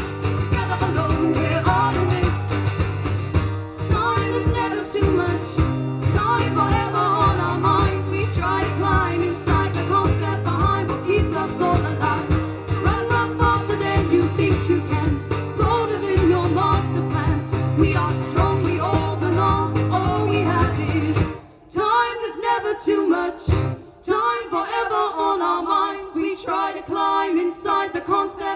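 Live band playing a song with sung vocals. About three-quarters of the way through, the instruments and bass stop abruptly and the voices carry on alone in harmony.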